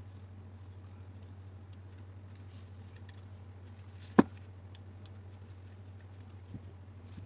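Small hand tools and metal parts of an angle grinder being handled while its housing screws are fastened: one sharp click about four seconds in and a fainter knock near the end, over a steady low hum.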